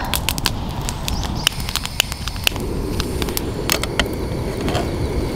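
Wood campfire crackling with sharp pops throughout. About halfway in, a frying pan of chopped green onions in freshly poured oil on a portable gas stove starts sizzling.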